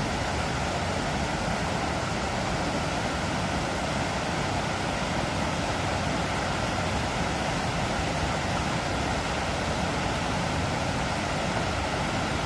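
Water pouring steadily over a small concrete spillway weir, a constant rushing with no change.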